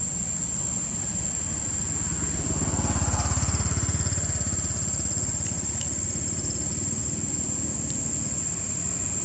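Low, steady hum of a motor vehicle engine running nearby, swelling louder for a couple of seconds about three seconds in as it passes, then settling back. A thin, steady high whine sits above it throughout.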